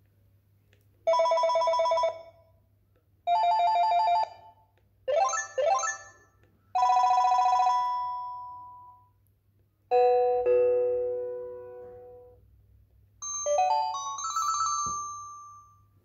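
Panasonic cordless phone handset playing short previews of its built-in ringer tones one after another as the ringer-tone menu is scrolled. There are about six in turn: buzzy trilling rings, two quick rising chirps, a chime that fades out, and a rising run of notes near the end.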